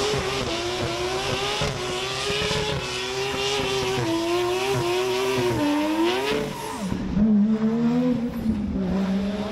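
Drifting car's engine held at high revs, its note wavering as the car slides, with tyres screeching under it. About six and a half seconds in, the revs fall away and a deeper engine note takes over.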